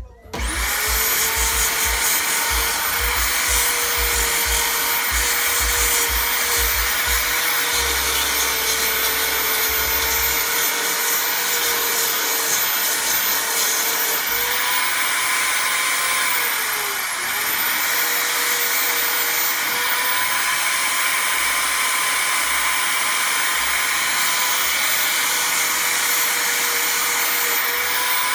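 Small power sanding wheel spinning up and then running steadily with a high motor whine, over the rasp of a burlap (coffee-bag) composite knife handle being sanded against it. About seventeen seconds in the motor briefly slows under load and picks back up.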